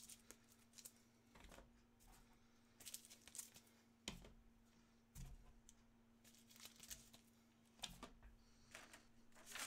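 Near silence: faint room tone with a steady low hum and a scatter of soft rustles and clicks.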